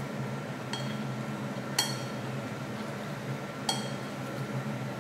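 Eating utensils clinking against a bowl three times, the second clink the loudest, each with a short ring, over a steady low hum.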